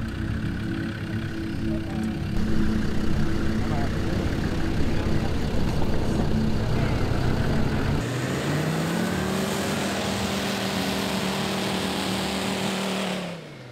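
A four-wheel-drive vehicle's engine runs at steady revs with a low rumble. About eight seconds in, a Land Rover Defender 90's engine revs up and holds high revs under a rushing hiss as it drives through the sand dunes. The sound cuts off suddenly near the end.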